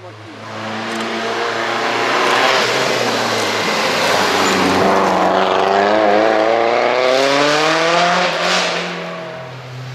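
Lancia Delta Integrale rally car's turbocharged four-cylinder engine driving past at speed. Its note falls around the middle, then climbs again as it accelerates away, easing off near the end.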